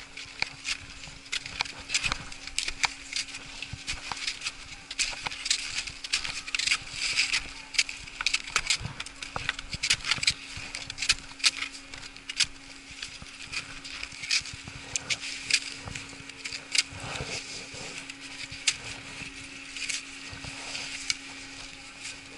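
Skis, boots and poles crunching, scraping and clacking on packed snow in many irregular clicks while skiers shuffle at a standstill, over a steady low hum.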